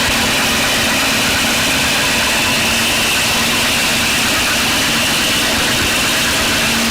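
Harsh noise wall: a dense, unchanging roar of static that fills every pitch, with a steady low hum underneath and a brighter hiss band higher up.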